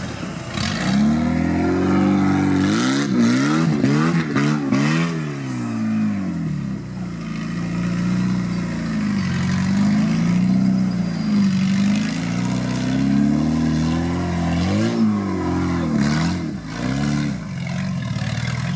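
Suzuki Samurai 4x4's engine revving up and down under load as it crawls over steep dirt mounds. The pitch rises and falls several times in quick succession a few seconds in and again near the end, with a few knocks between.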